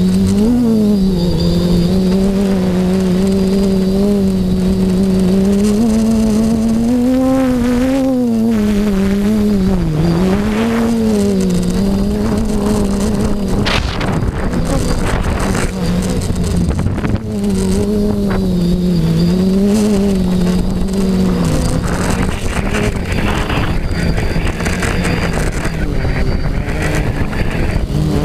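FPV quadcopter's electric motors and propellers heard from the camera on board, a steady buzzing hum whose pitch wavers up and down as the throttle changes, with wind rushing over the microphone. About three quarters of the way through the steady hum breaks up into a rougher, noisier rush.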